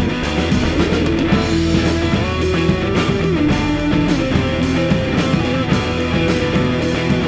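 Rock band playing an instrumental passage: two guitars holding sustained notes over bass and a steady drum-kit beat.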